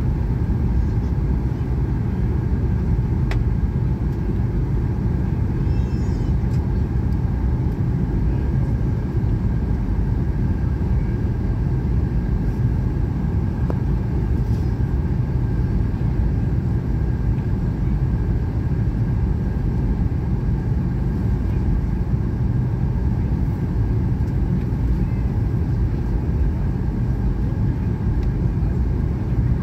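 Steady cabin noise inside a Boeing airliner on descent: a low, even rumble of engines and airflow, with a faint steady high tone above it.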